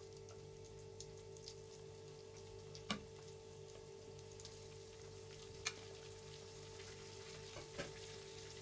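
Flour-coated sardines deep-frying in hot oil in a pot: a soft, steady sizzle with a few sharp pops.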